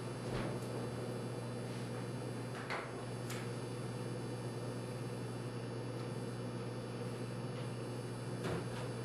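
Steady low hum in a small kitchen, with a few faint knocks and clicks as a plastic milk jug and a bowl are handled on the counter.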